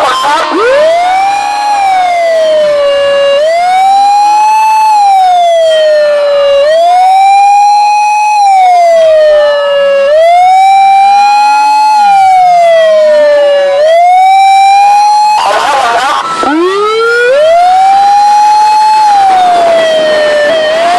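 Fire truck siren wailing loudly, its pitch rising and falling about every two seconds. About sixteen seconds in, the wail dips sharply low through a brief burst of noise, then climbs back into its cycle.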